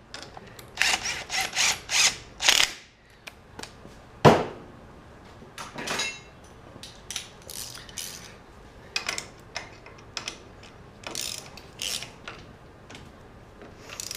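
Hand socket ratchet clicking in short strokes as new brake bracket bolts on a front spindle are tightened, with a sharp metal knock about four seconds in and scattered clicks and taps afterwards.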